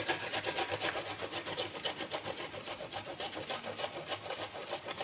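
A piece of petha (candied ash gourd) being rubbed back and forth on a handheld box grater, a rasping scrape in rapid, regular strokes.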